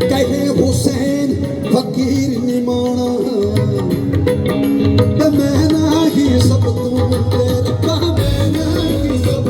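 Live Punjabi folk music played loud: a wavering melody line over steady drums.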